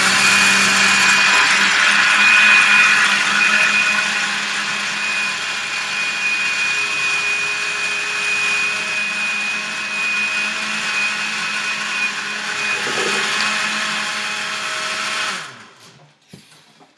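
Countertop blender running steadily with a high whine, blending a milk, coffee and ice frappuccino mix, then switched off and stopping suddenly about fifteen seconds in.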